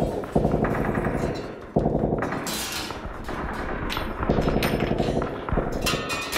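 Bursts of rapid automatic gunfire, muffled and heavy, coming in long runs with short breaks between them.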